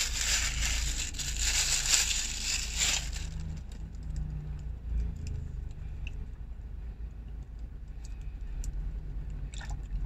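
Plastic bag rustling and crinkling for about three seconds, then quieter handling with a few light clicks over a steady low hum inside a car.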